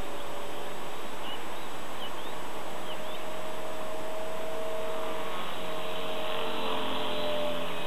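Blade 400 electric RC helicopter flying overhead: a steady whine from its motor and rotors over a hiss, its pitch wavering slightly about five seconds in.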